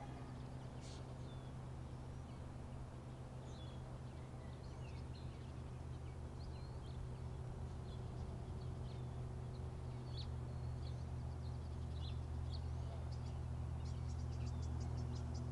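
Birds chirping in short, scattered calls over a steady low hum. Near the end a rapid run of high ticks begins, about eight a second.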